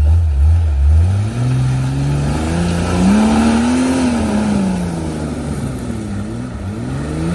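Off-road rig's engine revving under throttle on a rock-crawling climb attempt. The pitch rises over the first few seconds, peaks about four seconds in and falls away, then comes in a few short up-and-down revs near the end.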